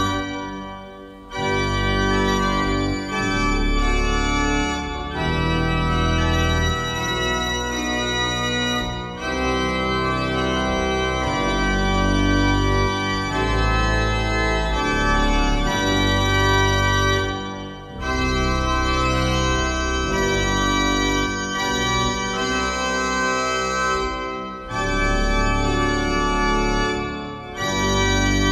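1913 Heinrich Schiffner pipe organ playing held chords over a deep pedal bass. The sound falls away briefly between phrases, first about a second in and a few more times after that.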